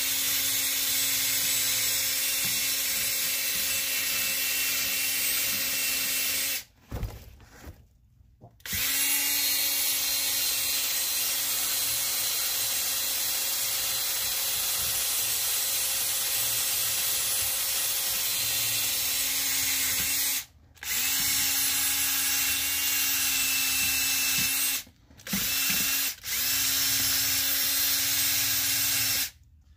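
Electric power tool motor running steadily with a steady hum. It cuts off abruptly a few times and starts up again, its pitch rising briefly as it comes back up to speed.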